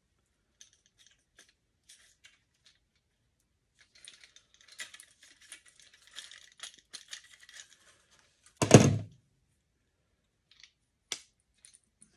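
Hands fitting a gasket and small parts onto a fuel pump sending unit: a few light clicks, then several seconds of rustling and rattling, then a single loud thump near the end, followed by two sharp clicks.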